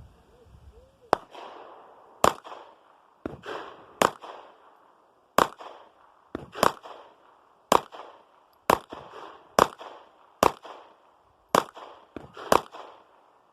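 A Sig Sauer P226 Legion 9mm pistol firing single shots in slow, steady succession, about one a second, each crack followed by a short echo, with a few fainter shots in between.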